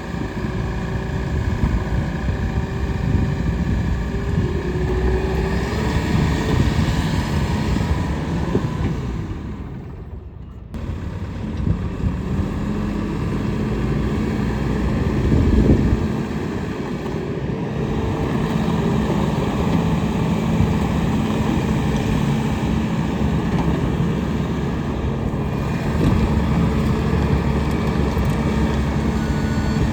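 Bobcat T770 loader's diesel engine running steadily, dipping briefly about a third of the way in and swelling again about halfway. A reversing beeper starts sounding near the end.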